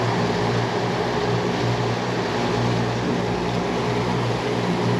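Outboard motors running steadily as the boat trolls, a low even hum with the hiss of the wake and wind over it.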